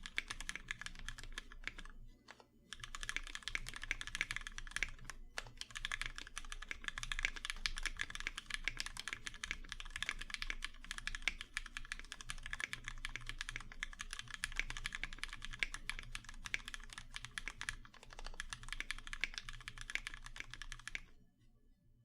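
Steady fast typing on a custom 60% mechanical keyboard with lubed Cherry MX Black linear switches, an aluminum plate and case, and GMK keycaps: a dense run of keystroke clacks, with a brief pause about two seconds in, stopping shortly before the end.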